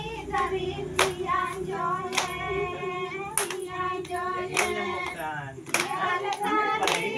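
A group of voices singing a folk dance song together, with a sharp clap landing about every 1.2 seconds to keep the beat.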